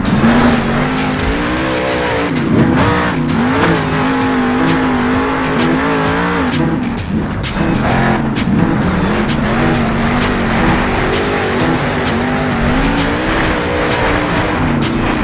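A vehicle's motor running steadily, its pitch repeatedly dipping and climbing back as the throttle changes.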